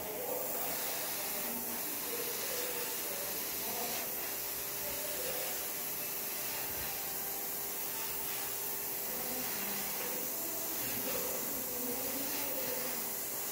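Gravity-feed airbrush spraying lemon-yellow lacquer paint thinned with lacquer thinner: a steady hiss of compressed air and paint mist, held evenly without a break.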